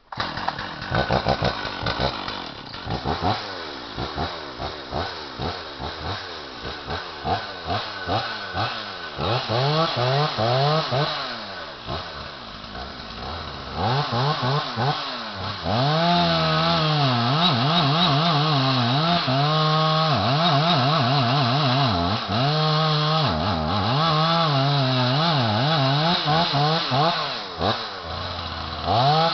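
Stihl chainsaw starting abruptly and revving up and down, then from about halfway held at full throttle as it cuts into a live standing tree, its pitch sagging and recovering again and again under load.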